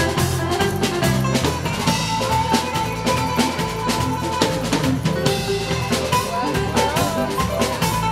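Live Greek band playing fast pentozali dance music, a drum kit keeping a quick, steady beat under a high melody line.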